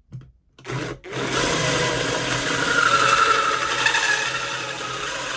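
Cordless drill driving an Armeg Acceler8 hole saw through a metal plate. The drill starts up about half a second in, then runs steadily as the saw's teeth cut through the metal, a loud rasping cut over the motor's steady hum.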